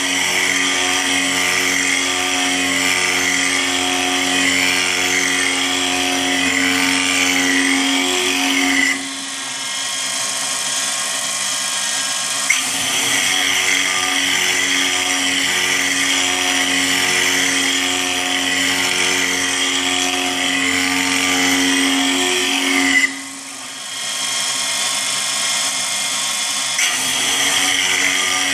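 CNC milling machine cutting a circular pocket in an aluminium plate with an end mill by circular interpolation: a steady spindle whine over a loud cutting screech. The cutting noise drops away twice, about 9 and 23 seconds in, for a few seconds each, then resumes.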